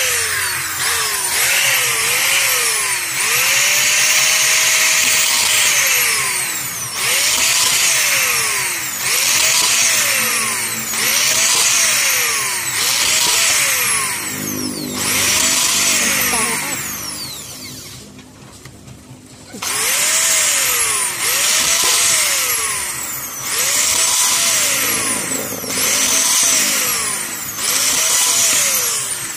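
Black & Decker corded electric drill run in short trigger bursts, boring into blue plastic pipe: about a dozen bursts a couple of seconds apart, each whining up to speed and winding down, with a pause of about two seconds past the middle.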